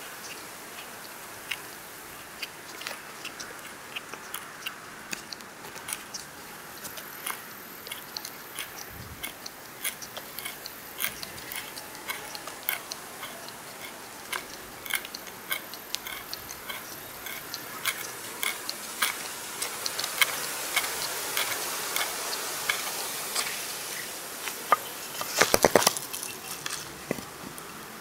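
The pointed bit of a Ruike LD43 multitool being twisted into a wooden board, the wood giving short, irregular clicks and ticks, one or two a second, as the point bores a hole. A quick run of louder clicks comes near the end.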